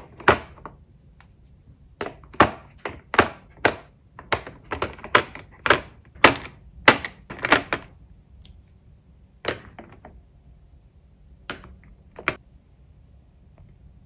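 Plastic Zebra Mildliner markers being set down one after another into a clear plastic tray: a quick run of sharp clacks and taps as they knock against the tray and against each other, thinning to a few scattered taps in the second half.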